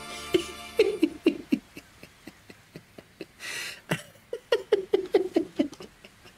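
A man laughing in short bursts: a few about a second in, a breathy gasp in the middle, then a quick run of laughs near the end. Faint regular clicking runs underneath.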